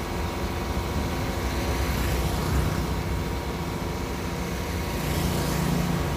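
Heavy diesel machinery engine running with a steady low rumble, a humming tone rising out of it about two seconds in and again near the end.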